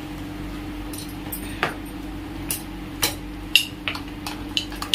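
Steel spatula clinking and scraping against a steel kadhai as a thick paste is stirred: a handful of sharp separate clinks, most of them in the second half, over a low steady hum.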